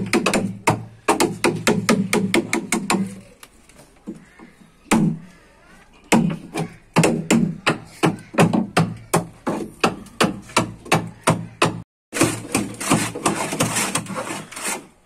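Claw hammer tapping a wood chisel into a timber boat frame in quick runs of strikes, about five a second, with a pause of a few seconds in between. Near the end the strokes turn sharper and hissier.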